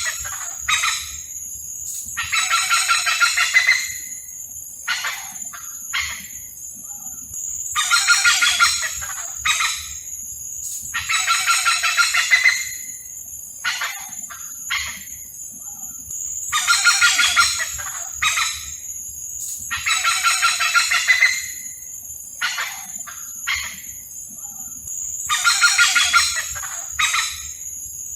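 Hornbills calling: long, loud, crowing calls, about two every eight or nine seconds, with short single notes between them. A steady high-pitched whine runs underneath.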